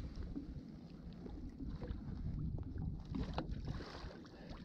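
Wind buffeting the microphone and water lapping against a small boat's hull, with short splashes about three seconds in as a lake trout is released over the side.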